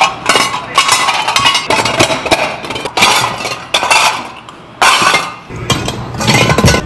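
Stainless steel rice bowls and lids clinking and clattering against each other as they are handled and stacked, many quick metallic knocks with a short ring after each.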